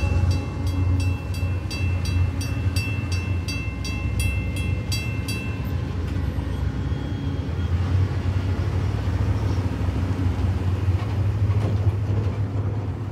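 Grade-crossing bell, an electronic WCH soundcard fitted in an old GS bell housing, ringing at about three strikes a second and stopping about six seconds in as the crossing clears after the train. A steady low rumble of passing road traffic runs underneath.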